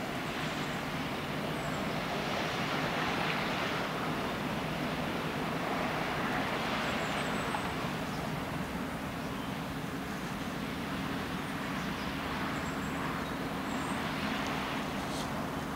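Steady low drone of a passing small cargo ship's engine, under wind rushing over the microphone in slow swells.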